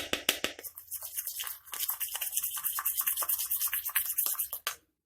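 A spoon stirring honey into ginger juice in a small cup or bowl, fast scraping and clicking against the sides, which stops shortly before the end.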